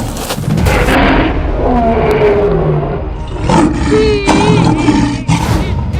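Wild animals roaring and growling in a series of loud calls that bend up and down in pitch, over background music.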